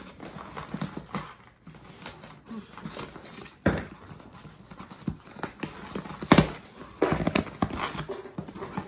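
Irregular knocks, scrapes and rattling as a large box that is hard to open is worked at by hand, with two sharp knocks, one about three and a half seconds in and one about six and a half seconds in.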